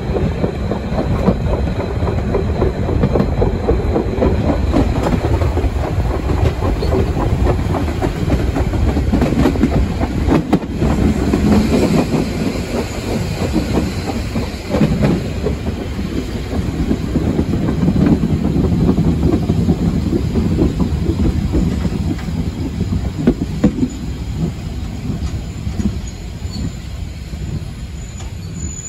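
Narrow-gauge passenger train running, heard from a carriage window: a steady rumble with wheels clattering over rail joints and points. It eases off as the train slows into a station, with a high wheel squeal near the end.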